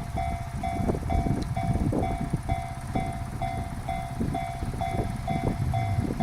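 Japanese level crossing's electronic warning bell sounding steadily about twice a second over the low rumble and wheel clatter of a passing freight train.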